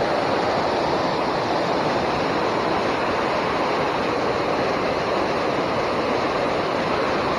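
Water pouring over a small river dam, a steady rushing with no breaks.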